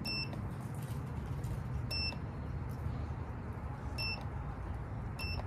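Handheld digital battery tester beeping as its buttons are pressed: four short, high, identical beeps about two seconds apart.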